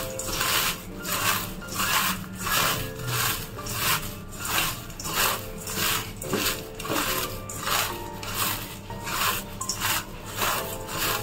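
Rhythmic rubbing or scraping strokes, about two a second.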